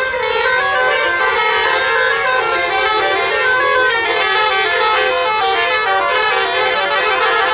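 Basuri telolet bus horns pitted against each other in a horn battle, playing multi-tone melodies that step quickly from note to note with no break.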